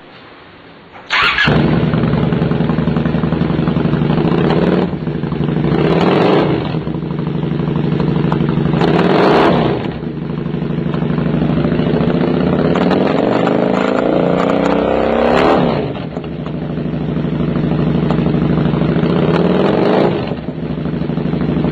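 Honda Shadow VT 600's V-twin running through a chromed Roncar V-Rod-style aftermarket exhaust, built louder than the stock pipes. The engine fires about a second in and idles, is blipped up and back down a few times, and once is taken up more slowly before dropping back to idle.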